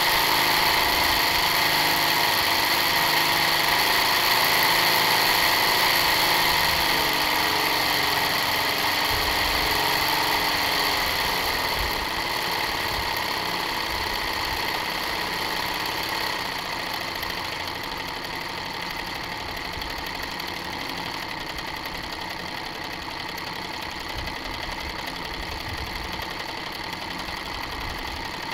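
Engine sound of a Detroit Diesel 3-71 two-stroke diesel, reproduced by a Lego model engine's sound system, running steadily and gradually getting quieter.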